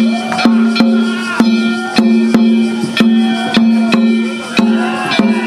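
Danjiri festival float's percussion band: drum and hand gongs struck in a fast, even rhythm of about two strokes a second, the gongs ringing on steadily between strokes.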